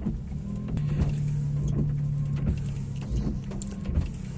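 First-generation Honda Fit windshield wipers running over a wet windshield: a steady hum with repeated swishes of the blades.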